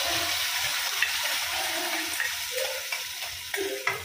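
Ground onion-tomato masala paste sizzling as it is poured into hot oil in a kadai. The hiss slowly dies down, with a few sharp knocks of the steel grinder jar against the pan about a second in and near the end.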